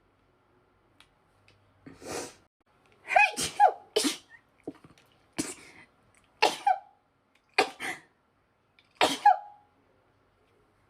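A woman's sneezing fit: a rapid run of about six sharp sneezes, roughly one a second, several with a short high voiced cry, after a softer breath about two seconds in.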